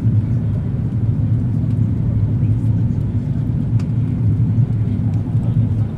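Steady low drone of a jet airliner's engines and rushing air, heard from inside the passenger cabin during descent.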